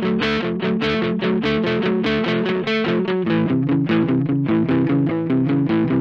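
Samick Greg Bennett Royale RL-1 semi-hollow electric guitar played through an amplifier: fast, even picking of chord notes, about six strokes a second, moving to a new chord about halfway through.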